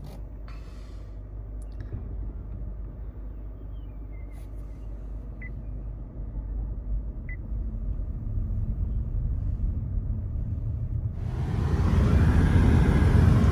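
Car engine running with a low rumble that slowly grows louder. About eleven seconds in, a louder rushing noise comes in over it.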